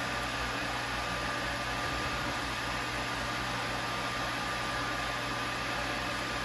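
Tormach CNC mill running with a steady mechanical hum and a thin, steady high whine over it.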